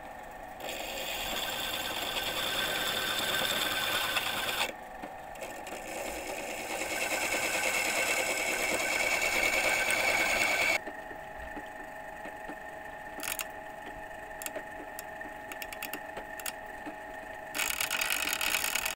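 Electric drill spinning an engine valve while a flat file is pressed against the valve's seating face to recut it: a loud scraping rasp in two long stretches and again near the end, with the drill motor running alone in between.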